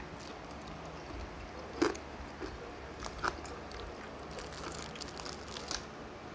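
Close-up crunching and chewing of crispy deep-fried food: a fried spring roll and crackling pork skin. Scattered sharp crackles come through, the clearest about two seconds in and just after three seconds, with a small cluster near the end.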